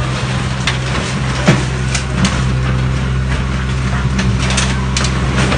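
Mini excavator's diesel engine running steadily at a low, even pitch. Several sharp knocks or clanks sound over it, the loudest about a second and a half in.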